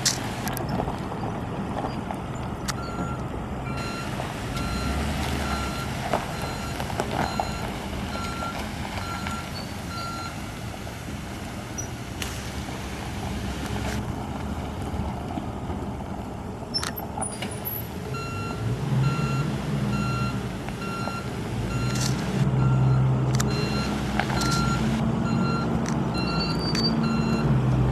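Ford F-150's 5.0 L V8 running as the pickup drives slowly across gravel, the engine growing louder over the second half. A backup alarm beeps steadily, a little over one beep a second, in two long stretches.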